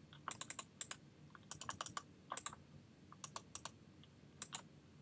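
Typing on a computer keyboard: faint, irregular key clicks in short quick runs, entering a search.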